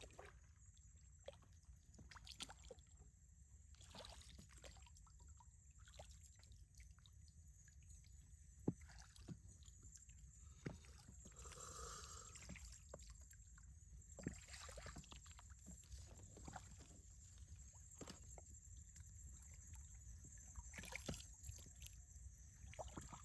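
Quiet sounds of a small boat being paddled: faint water sloshing and trickling, with scattered light clicks and knocks and one sharper tick about nine seconds in.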